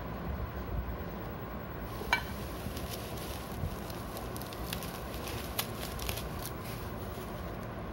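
Plastic bubble wrap crinkling and crackling in short scattered bursts as hands handle it, with a single sharp click about two seconds in.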